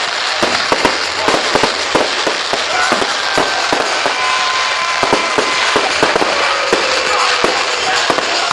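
Fireworks display going off: rapid, irregular bangs and crackling over a continuous hiss, with a few thin whistling tones that hold or slide down in pitch.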